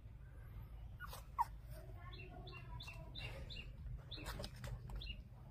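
Young puppies squeaking and whimpering: a run of short, high-pitched squeaks and thin cries between about two and five seconds in. There is a single sharp click about a second and a half in.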